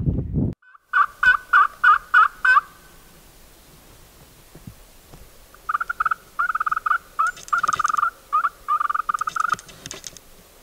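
Turkey call worked by hand to imitate a hen: five quick yelps about a second in, then after a pause a longer, faster run of notes lasting several seconds.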